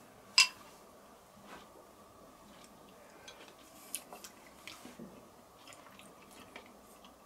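A man eating a spoonful of beef stew: a sharp click of the metal spoon about half a second in, then quiet chewing with a few small clicks.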